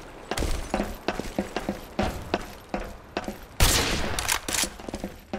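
A rapid, irregular series of sharp knocks and clacks, with a louder rushing burst about three and a half seconds in.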